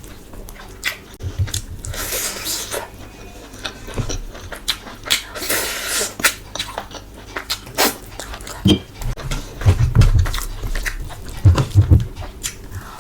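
Close-miked eating: wet chewing and mouth smacks with many short clicks, and two longer noisy stretches about two seconds in and again around five to six seconds. Low knocks come near the end.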